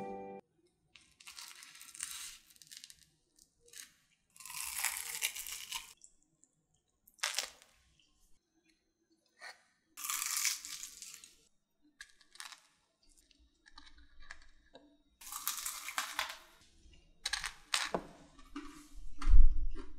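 Crispy deep-fried coating of Korean corn dogs crunching and crackling in several short bursts as a corn dog is broken open. A dull thump comes near the end.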